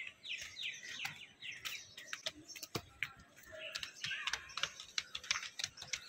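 Small birds chirping in quick, repeated falling notes, thickest in the first couple of seconds. Scattered light taps of children's footsteps on stone steps sound through the chirping.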